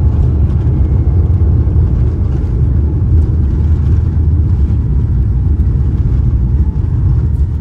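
Boeing 787-8 airliner rolling out on the runway just after touchdown, heard inside the cabin: a loud, steady low rumble of engines, wheels and rushing air as the jet slows with its spoilers up.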